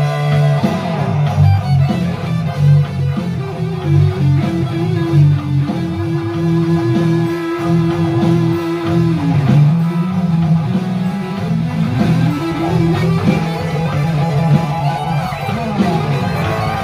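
Two electric guitars played together through amplifiers in a rock jam. Low chugging chords run under a lead line that bends notes and holds one long note through the middle.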